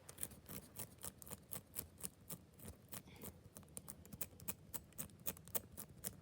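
Combination dials of a TSA luggage padlock being turned by hand, a quick run of small sharp clicks, about four or five a second, as the dials snap from number to number.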